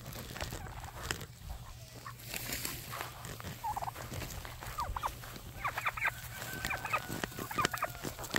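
Turkeys gobbling in short rattling bursts: a few calls from about four seconds in, then quicker bursts in the second half. Before the calls there are faint rustling steps in grass.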